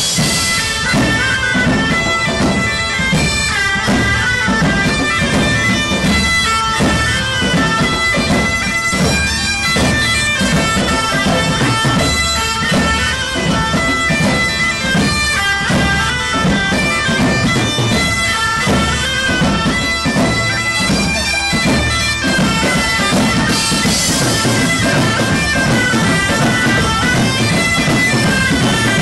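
Music: a high piping melody of held notes over a regular drumbeat.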